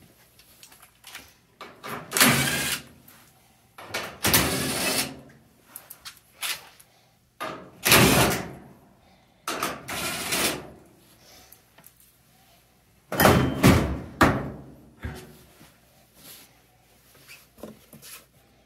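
Cordless drill run in five short bursts of about a second each, backing the screws out of a clothes dryer's front panel, with a few knocks of the panel being handled in between.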